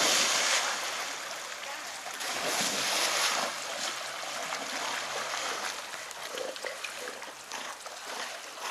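Black Labrador retrievers splashing into a creek pool and swimming out after a thrown toy, over the steady rush of the creek's running water. The splashing is loudest right at the start and again about two and a half to three and a half seconds in.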